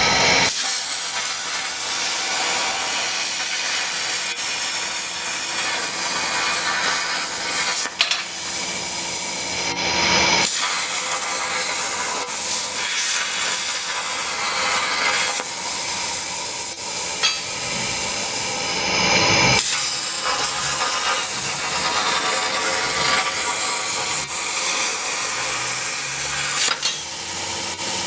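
Plasma torch on a Vernon Tool MasterPipe Mini CNC pipe profiler cutting through pipe: a loud, steady hiss, with abrupt shifts in tone about ten and twenty seconds in.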